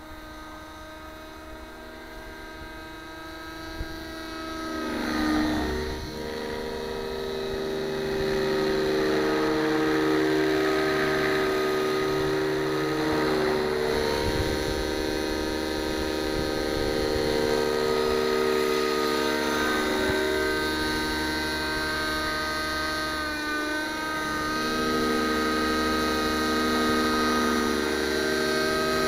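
JR Vibe 55 RC helicopter's O.S. nitro glow engine and rotors running in flight. It starts distant and gets louder after about five seconds as the helicopter comes in low, and the engine note dips and recovers about four times as it manoeuvres and passes.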